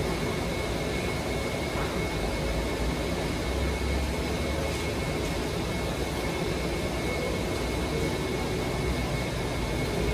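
Automatic cotton candy vending machine running during production: a steady whirring rush from its spinning floss head and air flow, with a faint steady high whine.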